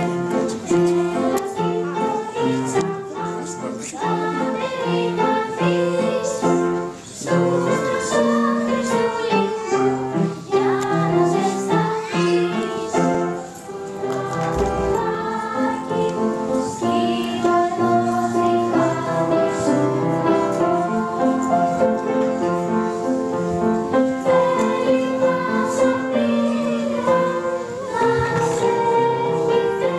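A small group of girls singing a song in unison to upright piano accompaniment, with hand triangles struck now and then.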